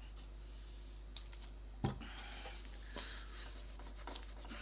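Cloth wiping and rubbing over a bakelite radio case, lifting off paint softened by nail polish remover; the rubbing grows stronger about two seconds in. A single sharp knock comes just before then.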